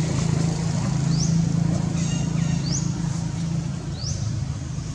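Steady low hum of a running engine, with a bird giving a short, high upward-sweeping call three times, about every second and a half.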